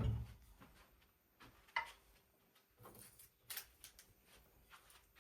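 A few faint, scattered clicks and knocks of kitchen utensils being handled, about four of them spread over the few seconds.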